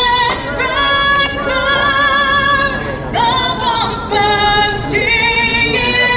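A woman singing solo, holding long notes with a wide vibrato.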